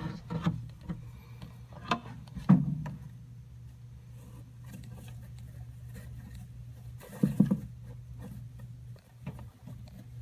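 A savannah monitor shaking and working a mouse in its jaws, knocking it against the bark substrate and a wooden branch: a few dull knocks and scuffs, the loudest about two and a half seconds in and a cluster around seven seconds, over a steady low hum.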